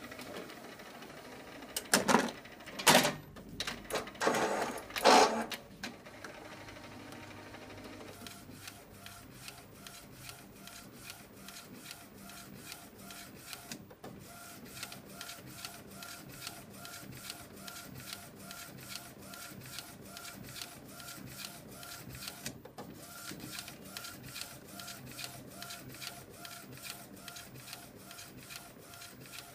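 ACP-PRO automatic inkjet CD and ID-card printer printing, its print-head carriage shuttling back and forth in a steady quick rhythm of clicks. A few loud knocks come a few seconds in.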